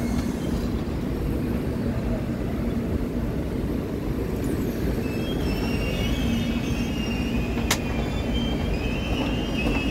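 Passenger train running on the rails: a steady low rumble of wheels on track, with faint high-pitched wheel squeal in the second half and one sharp click near the end.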